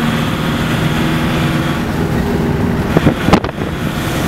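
Engine and road noise of a moving road vehicle heard from inside the cabin, a steady drone with a low hum, with a couple of sharp knocks about three seconds in.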